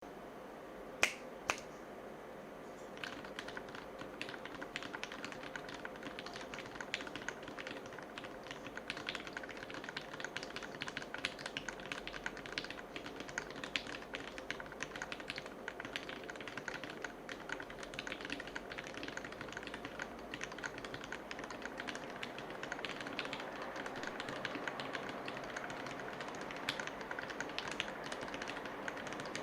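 Typing on an Erisu Alice-layout mechanical keyboard with lubed Gateron Milky Yellow linear switches: a steady stream of keystrokes that starts about three seconds in, after two sharp clicks.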